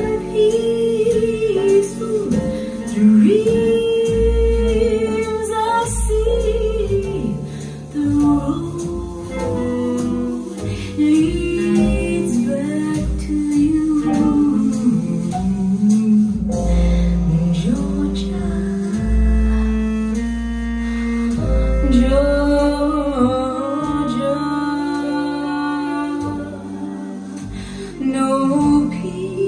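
Recorded song played back over Tannoy Prestige Autograph Mini loudspeakers: a singer's voice over deep bass notes.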